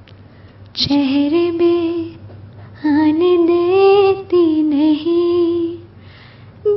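A female voice singing a slow song, in two held phrases: a short one about a second in and a longer one from about three seconds to nearly six, with short pauses around them.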